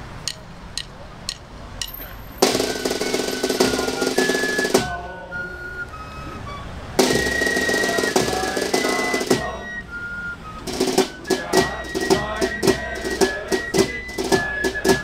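Music led by drums and percussion, with snare rolls and pitched melodic notes. It comes in loud passages and settles into a fast, steady beat in the last few seconds.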